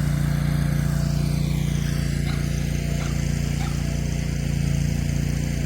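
Chainsaw running steadily at high revs, cutting into the maple's trunk as the tree nears falling.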